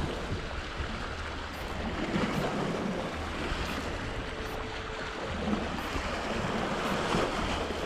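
Sea waves surging and washing over a rocky shore, with wind rumbling on the microphone.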